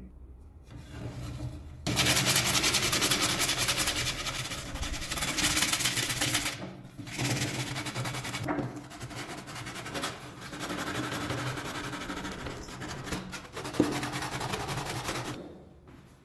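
Wood being sanded with an abrasive disc, a steady rasping rub along the wooden stock of a homemade slingshot gun. It starts about two seconds in, breaks off briefly a few times and stops near the end.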